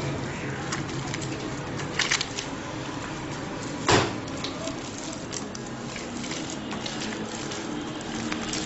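Soft, sticky bun dough being kneaded by hand on a stone worktop as oil is worked into it: wet squelching and slapping, with two sharp slaps about two seconds in and the loudest slap about four seconds in.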